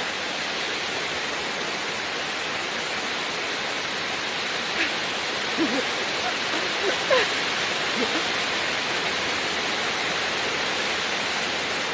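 Dzykhrinsky waterfall: a steady, even rush of falling water, with a few faint brief sounds around the middle.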